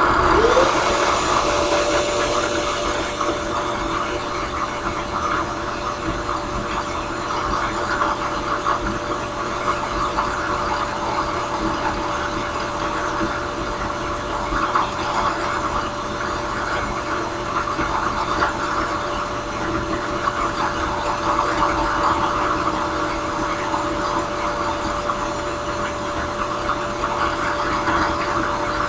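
Drill press motor spinning a small drum sander: it comes up to speed in the first second, its hum rising in pitch and then holding steady. Over it, the sanding drum rasps unevenly against the briar pipe bowl pressed to it.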